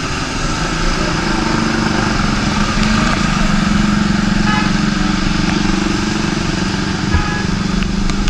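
A vehicle driving through deep floodwater: an engine running steadily under a constant hiss of water and spray from the wheels.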